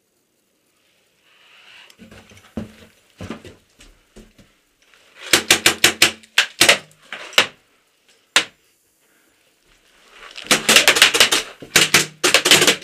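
Paintball markers firing inside a wooden bunker, sharp pops in quick strings: about eight shots in a second about five seconds in, a few single shots, then a longer rapid burst near the end.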